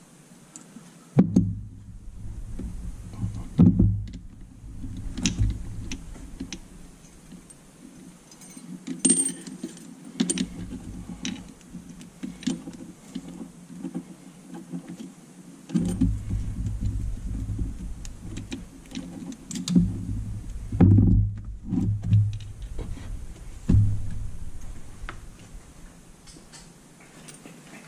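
Yamaha YXZ1000 clutch basket and its stacked clutch plates clinking and rattling as they are handled and moved, with irregular sharp metal clicks and dull knocks.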